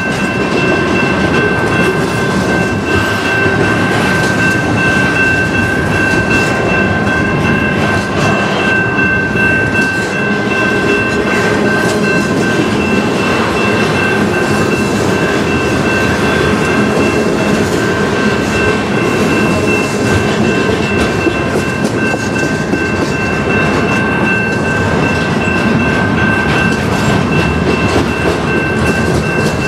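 Double-stack container well cars of a freight train rolling past at steady speed: a continuous rumble with wheels clattering over the rail. Two steady high tones sound over it throughout.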